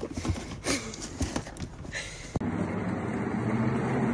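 A clear plastic tub is handled, with light knocks and rustles. After a sudden cut comes a steady low rumble from a cat exercise wheel rolling as a cat leaps and runs on it.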